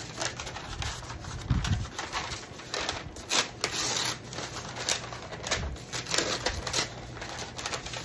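A sheet of craft paper being handled: an irregular run of rustles, crinkles and small clicks, busiest about three to four seconds in.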